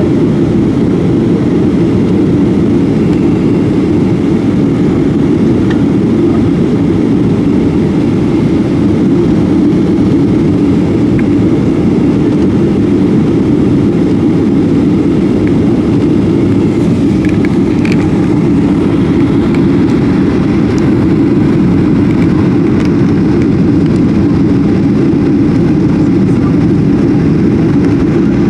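Steady cabin noise inside a jet airliner descending on approach: the engines and rushing air make a loud, even, deep rumble with no changes.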